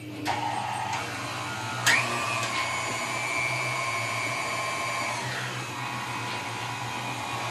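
Electric pasta roller motor running steadily with a whining hum, its pitch stepping up with a click about two seconds in and dropping back around five seconds as the dough sheet is fed through the rollers.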